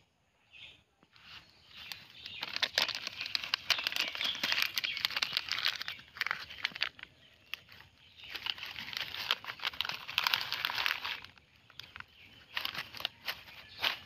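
A plastic snack packet crinkling and rustling as it is handled and stuffed into a cloth tote bag, in three spells of crackling separated by short pauses.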